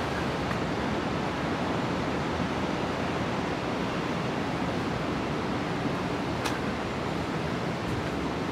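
Steady city street ambience: an even wash of background noise, with one faint click about six and a half seconds in.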